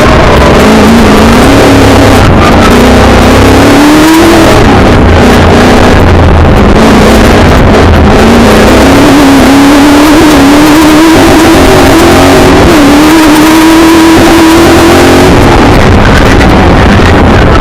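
Milner R5 racer's 5-litre V8 engine heard from inside the car at full throttle, its pitch climbing, dropping about four seconds in, then climbing again in a long pull before falling away near the end. Very loud.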